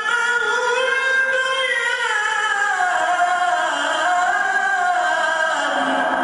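A man's voice reciting the Quran in a chanted, melodic style: one long drawn-out phrase that slowly falls in pitch.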